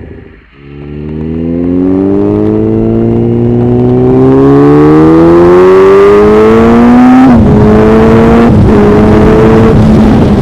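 Yamaha YZF-R1 (RN09) inline-four engine through an aftermarket Dominator exhaust silencer, accelerating hard with a steadily rising engine note. The pitch drops sharply about seven seconds in at an upshift, then holds fairly steady with another brief break shortly after.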